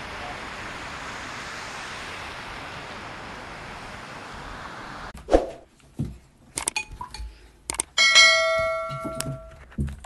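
Fountain water splashing as a steady hiss that cuts off about five seconds in. Then come subscribe-button sound effects: sharp mouse clicks and swishes, and about eight seconds in a bright bell chime that rings out for over a second.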